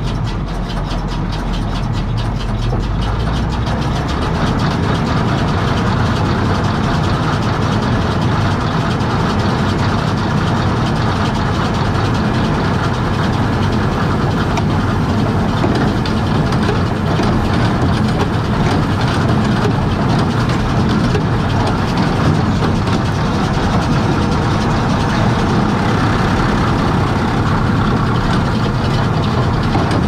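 Big square baler running while baling straw: a loud, steady mechanical clatter of its chains, gears and moving parts, with the tractor engine driving it underneath.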